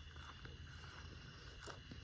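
Quiet woodland ambience: a steady low rumble and a faint steady high tone, with a couple of soft ticks near the end.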